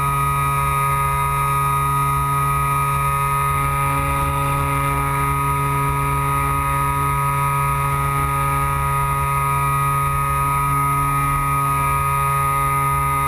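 Electric motor and propeller of a Carl Goldberg Electra RC sailplane running at steady speed in flight, a constant whine of fixed tones heard from a camera on the fuselage. Underneath is a rough wind rumble.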